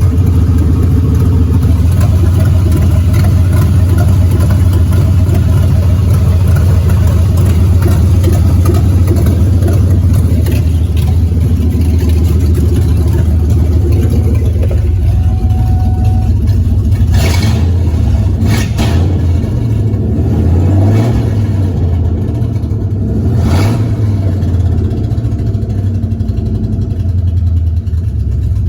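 A 2001 Ford Mustang Bullitt's 4.6-litre V8 running steadily at idle, loud, with the pitch lifting briefly a few times in the second half. The engine has an exhaust leak.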